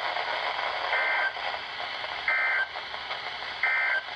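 NOAA Weather Radio EAS end-of-message: three short, identical bursts of SAME digital data tones, about 1.3 s apart, marking the end of the alert. A steady radio hiss runs underneath.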